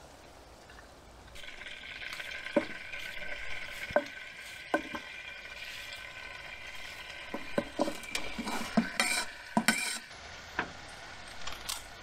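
Merguez sausages sizzling in a pan: a steady frying hiss starts about a second in and stops near ten seconds. A utensil clinks against the pan a few times, more often towards the end as the sausages are stirred and turned.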